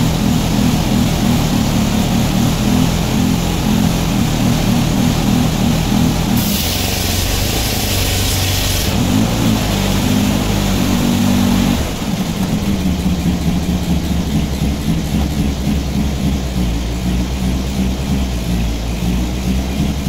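Circular sawmill running, its engine at a steady pitch. A high hiss comes in for about two seconds near the middle, and from about twelve seconds in the sound drops to a deeper rumble as the carriage is worked.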